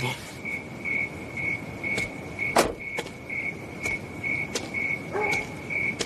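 A cricket chirping steadily on one high pitch, about two chirps a second. A few faint clicks sound over it, with one sharper tap about halfway through.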